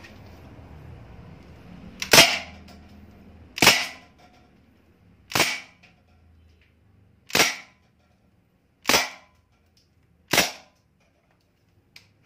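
Crosman Bushmaster MPW CO2 BB rifle firing six single shots in semi-auto, one to two seconds apart, each a sharp crack.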